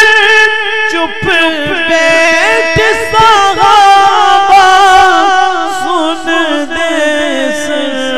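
A man's voice singing a Punjabi naat, a long ornamented phrase with a wavering pitch that slowly falls, broken by brief breaths about a second in and again near the end.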